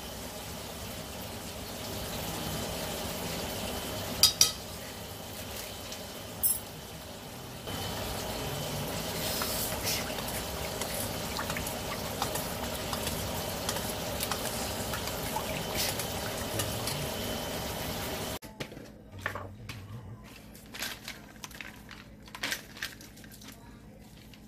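Metal spoon clinking against a stainless steel bowl and stirring a thick sauce, over a steady hiss, with a few sharp clinks in the first part. About three-quarters through it drops suddenly quieter, to light crackling and rattling of dried mushrooms handled over a steel bowl and a plastic jar.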